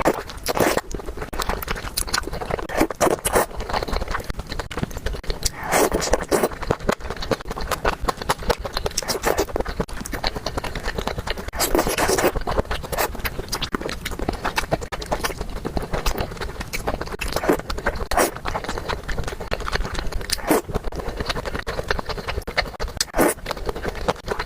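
Close-miked eating sounds: chewing and smacking, with many sharp wet mouth clicks and a few longer noisy smears.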